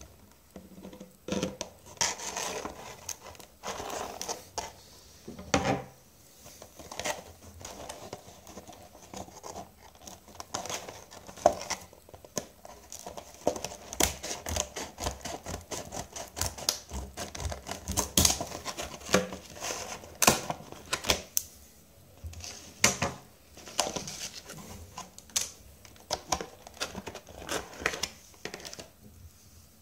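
Scissors cutting open a stiff clear plastic clamshell blister pack, the plastic crackling and crinkling as it is handled, with many sharp snips and clicks.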